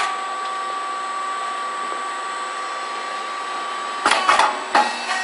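Puffed cake machine running with a steady whine, then several sharp clacks in quick succession about four seconds in.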